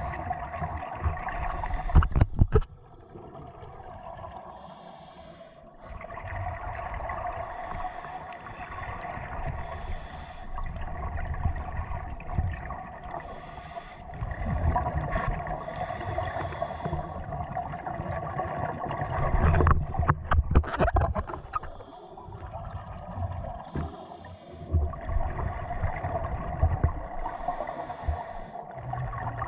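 Scuba diver breathing through a regulator underwater, heard through a camera housing: a hiss on each breath in every few seconds and gurgling bursts of exhaled bubbles, the heaviest near the start and about two-thirds of the way through, over a steady hum.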